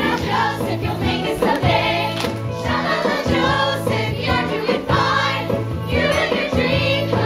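Musical-theatre ensemble singing in chorus, many voices together, over an upbeat instrumental accompaniment with a steady bass line.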